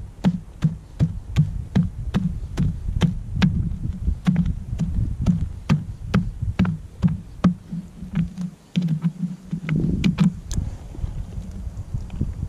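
Digging a hole by hand in stony desert soil: a steady run of sharp knocks and scrapes, about two or three a second, that stops near the end.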